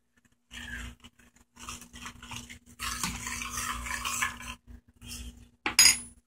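Metal spoon stirring and scraping in a cooking pan in several short bursts, with a sharp clink of metal on the pan near the end.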